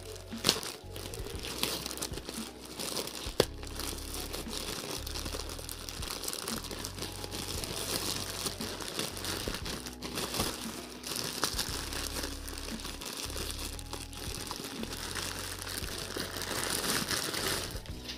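Thin plastic packaging crinkling and rustling continuously as hands tear open a plastic courier pouch and handle the plastic-wrapped parcel inside, with two sharper snaps in the first few seconds.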